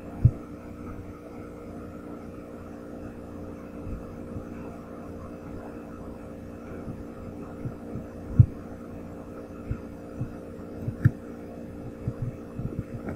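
Steady low electrical hum with scattered soft, low thumps from mouse clicks and scrolling, the strongest just after the start and about eight seconds in, coming more often near the end.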